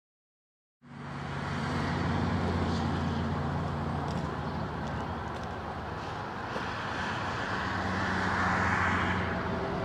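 A motor vehicle's engine running steadily with road noise, starting abruptly about a second in and swelling a little near the end.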